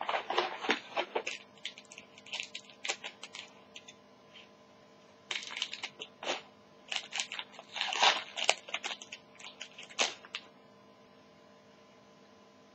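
Crinkling and tearing of a foil trading-card pack wrapper and cards being handled, in irregular bursts of crackle that stop about ten seconds in, leaving a faint steady hum.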